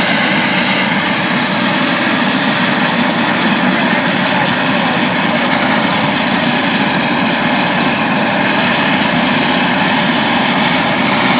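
Eurocopter EC130 helicopter running on the ground with its main rotor turning: a steady turbine whine with several high tones over the rotor's rumble, holding a constant level throughout.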